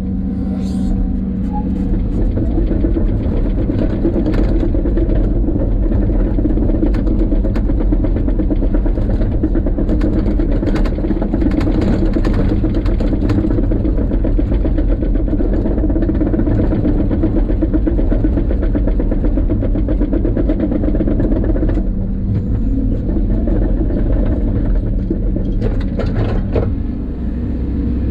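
Steady low rumble and hum of a running vehicle, easing briefly about two-thirds of the way in and again near the end.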